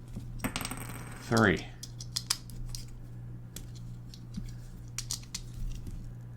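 Small sharp clicks, taps and a short scrape of plastic parts being pried apart and handled as a quartz clock movement is dismantled and its tiny plastic gears are pulled out. A brief hum of voice about one and a half seconds in.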